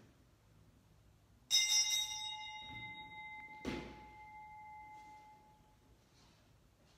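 A small bell struck once, ringing and slowly dying away over about four seconds. About two seconds after the strike there is a single dull knock.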